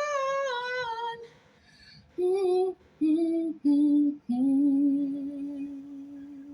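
A woman singing unaccompanied. She holds a high note for about a second, then after a short pause sings four notes stepping downward, the last one held long and fading.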